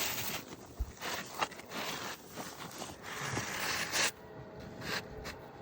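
Asphalt roofing shingles being handled and scraped, in irregular rustling, scraping bursts with a few sharp clicks.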